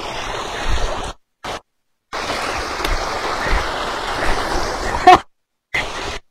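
Water rushing steadily out of a small pond outlet over rocks, with a few low bumps on the microphone. The sound cuts out completely twice, and a short voice sound is heard about five seconds in.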